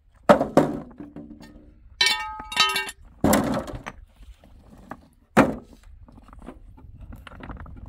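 Heavy thuds: about four knocks spread unevenly over several seconds, two close together at the start and the first the loudest, with two short pitched sounds about two seconds in.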